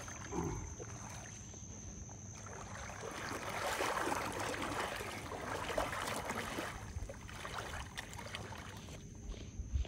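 Water sloshing and splashing around a person's wader-clad legs as they wade through shallow water, swelling for a few seconds in the middle.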